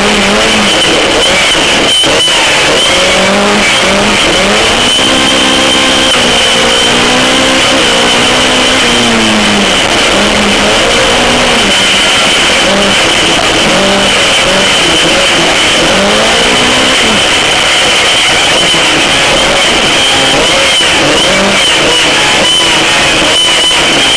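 Autocross race car's engine heard from inside the car, loud throughout, its pitch repeatedly rising and falling as it revs up and down through the gears while racing, with a steady high whine underneath.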